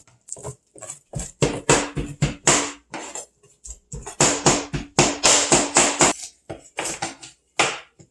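Cleaver chopping chicken meat and bone on a cutting board: rapid sharp chops, about three a second, with a short pause a little after three seconds and fewer, spaced-out chops near the end.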